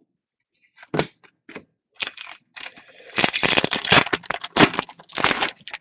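Trading cards and pack wrapping being handled: a run of sharp snaps and papery rustles, sparse at first and coming thick and fast in the second half.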